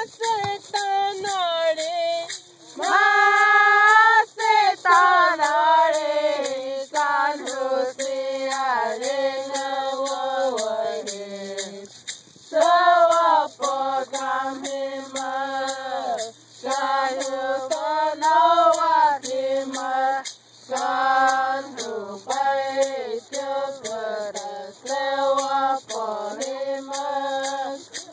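A high voice singing a Tohono O'odham traditional song unaccompanied, in phrases of held and sliding notes with short pauses between them.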